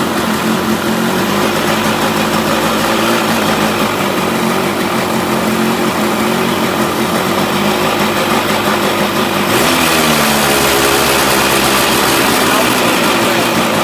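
Small two-stroke single-cylinder engine running, built from a Yamaha DT175 cylinder and head on a 1980 YT125 bottom end with a Blaster reed-valve intake. Its pitch shifts as it is revved. The sound changes abruptly about two-thirds of the way through.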